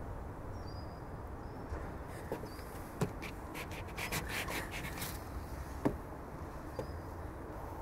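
Quiet garden background with faint bird chirps, and a few short knocks and crackles in the middle as a leather shoe stamps out a burning photograph on wooden decking.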